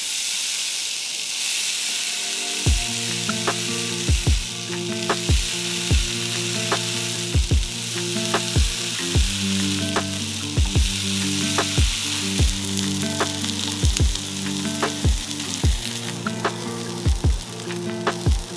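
Thick tomahawk steak sizzling on a hot ridged grill pan, the hiss starting sharply as the meat goes down and continuing as it sears. From about three seconds in, background music with a steady beat plays over the sizzle.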